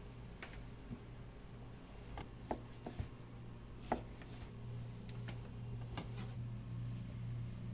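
Chef's knife cutting through seared beef sirloin and knocking on a plastic cutting board, a handful of sharp, irregular knocks, with beef cubes dropped into a stainless steel tray near the end. A steady low hum runs underneath, a little louder in the second half.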